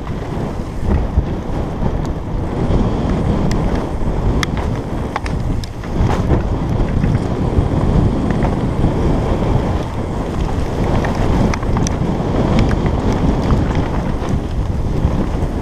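Wind rushing over a helmet-mounted camera's microphone as a mountain bike descends a dirt trail at speed, mixed with the rumble of tyres on dirt and dry leaves and scattered sharp clicks and rattles from the bike.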